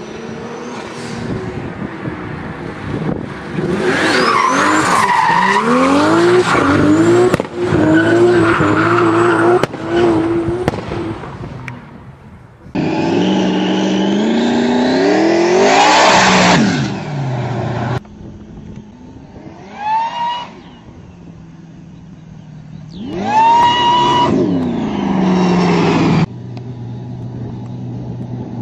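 Supercharged V8 cars revving and accelerating hard, the engine pitch climbing in repeated sweeps, with tyres squealing in the first half. After a cut about 13 seconds in, a muscle car with a hood-mounted Roots-type supercharger revs up in one long rising sweep, then two shorter ones.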